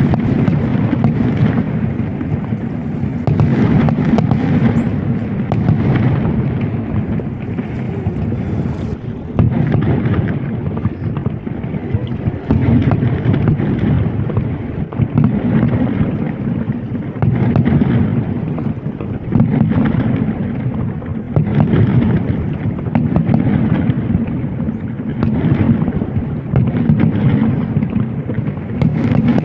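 Fireworks going off in a dense barrage: continuous deep booming with many sharp cracks and crackles on top, with no break.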